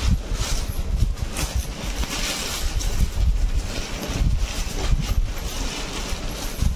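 Uneven, pulsing low rumble with a hiss over it, noise on the recording phone's microphone.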